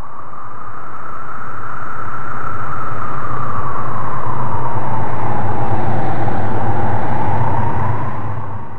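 Howling wind gust: a rushing noise that swells slowly with a hollow whistle that drifts up and then down in pitch over a low rumble, and fades out near the end.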